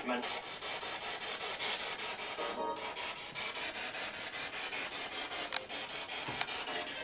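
Spirit box sweeping through radio frequencies: a steady hiss of static chopped into rapid pulses several times a second, with a brief snatch of broadcast sound about two and a half seconds in. Two sharp clicks come late on.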